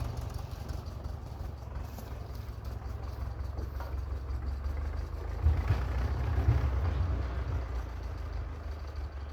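1995 BMW E34 engine being cranked by its starter in a steady, rapid chug without catching, getting louder about five and a half seconds in: a no-start, the engine turns over but will not fire.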